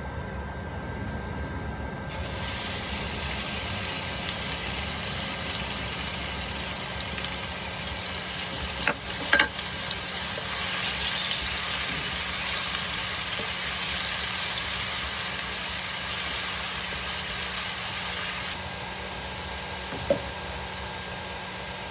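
Food sizzling in hot oil in a pan, a steady hiss that starts abruptly about two seconds in and cuts off near the end. A few sharp knocks come about halfway through and once more near the end, over a steady low hum.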